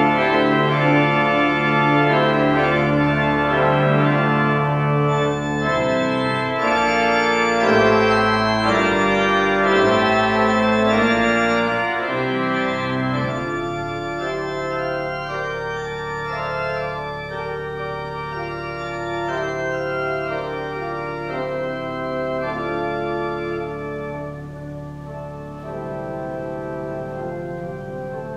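Church pipe organ playing sustained chords over held bass notes, loud at first and growing softer from about halfway through.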